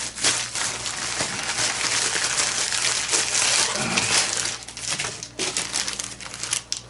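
Rustling, crinkling handling noise with many small clicks as a new RC car chassis is picked up and moved about. It eases and turns patchy about two-thirds of the way through.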